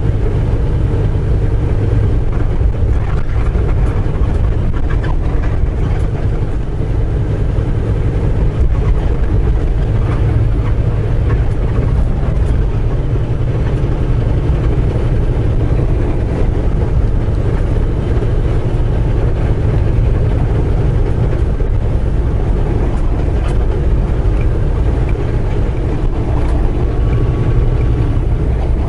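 Semi truck's diesel engine and road noise heard inside the cab while driving: a steady low drone, with a few faint clicks and rattles above it.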